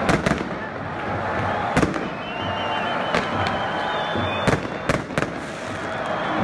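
Fireworks and pyrotechnics going off in a stadium: sharp bangs at uneven intervals, two right at the start, one a little under two seconds in, and three close together around four and a half to five seconds, over the steady din of the crowd.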